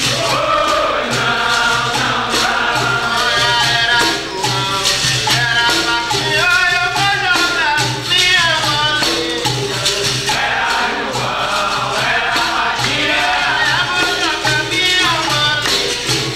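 Capoeira roda music: a group singing together over a shaken rattle, a pandeiro tambourine and a steady low beat.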